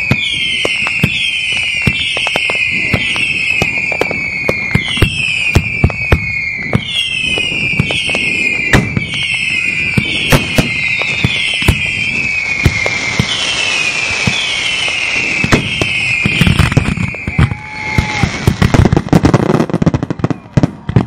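Fireworks display: a constant run of bangs and crackling, with a repeating high falling tone about twice a second through most of it. The tone stops near the end, and the bangs come thicker and louder in the last few seconds.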